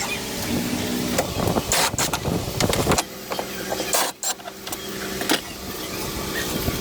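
A car engine running steadily, with several sharp knocks over it, bunched between about one and a half and three seconds in, again around four seconds in and once after five seconds.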